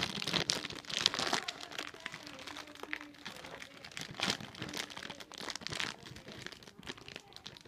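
Thin plastic toy bag crinkling and crackling in the hands in irregular bursts as someone struggles to tear it open.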